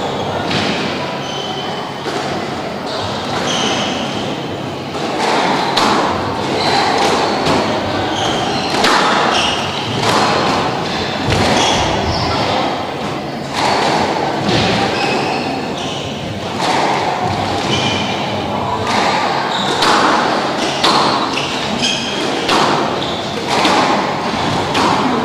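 Squash rally: the ball struck by rackets and thudding off the court walls again and again, with players' shoes squeaking on the court floor between shots.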